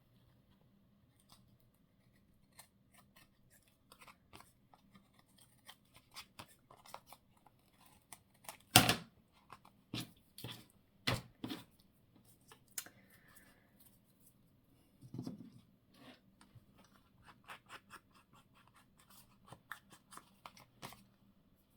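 Scissors snipping paper in short, irregular cuts, likely a small leaf shape being cut out, with one sharper knock about nine seconds in.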